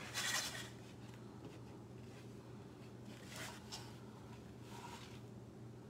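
Scissors cutting through fabric ribbon: a short rasping cut right at the start, then fainter snips about three and a half seconds in, over a low steady hum.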